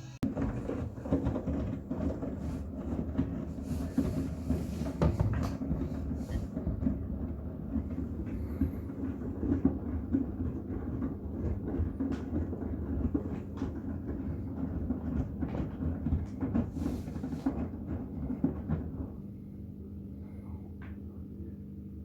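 Miele WCR 870 front-loading washing machine tumbling a load of bath towels in its drum: a steady churning with irregular soft thumps. About 19 seconds in the tumbling stops and a quieter low steady hum is left.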